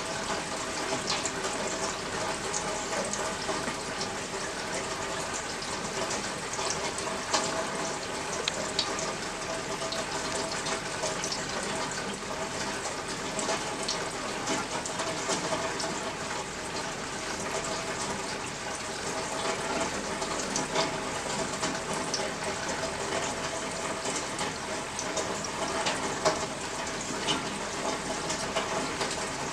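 Steady rain falling and running, with many scattered sharper drips and splashes throughout.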